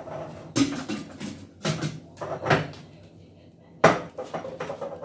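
Dishes and utensils clattering as they are taken out of a dishwasher and put away: a few separate knocks, with a sharp knock about four seconds in.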